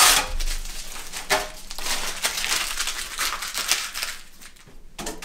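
A strip of paper painter's tape being scrunched into a ball by hand, crinkling, dying away after about four seconds.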